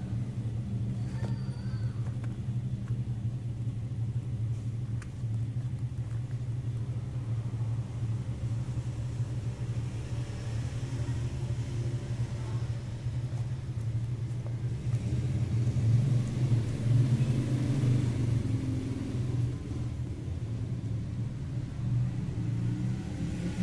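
A steady low rumble that grows somewhat louder in the second half.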